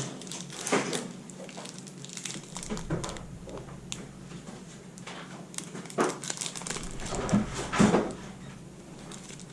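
Plastic candy-bar wrapper crinkling in irregular bursts as it is handled and turned over.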